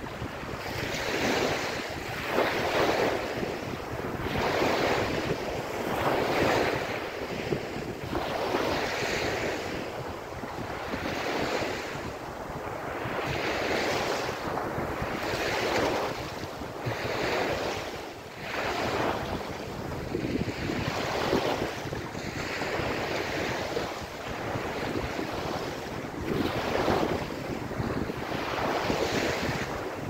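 Small sea waves breaking and washing up a sandy beach, the surf swelling and falling in surges about every two seconds.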